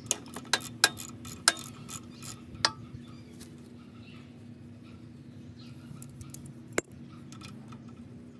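Socket ratchet with an 8 mm hex socket clicking in short strokes, about three clicks a second for the first few seconds, then one more click near the end, as the oil drain plug on a pressure washer pump is worked loose.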